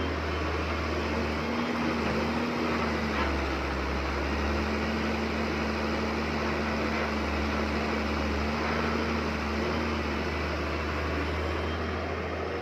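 A heavy machine's engine, likely the excavator digging the basement, running steadily with a low drone and a faint, slightly wavering tone above it.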